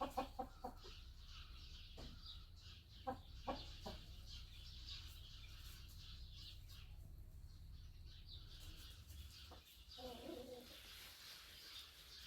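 Ogol (black-boned) chickens clucking: a quick run of short clucks at the start, a few more about three seconds in, and a longer call near the ten-second mark, over a faint steady hum.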